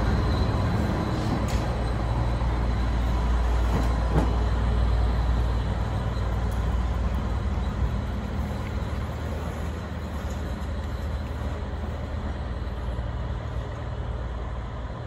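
Railway track-maintenance train, a motor car hauling ballast hopper cars, rumbling along the rails as it draws away, its low running noise slowly fading. A single sharp knock about four seconds in.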